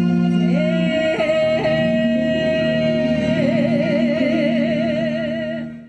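Singing with accompaniment: a voice glides up into one long held note, which starts to waver near the end, over a steady low drone, and the music fades out at the very end.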